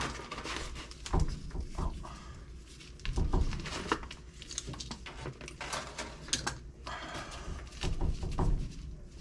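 Irregular knocks, clicks and scraping of work being handled at close range, with a low rumble underneath.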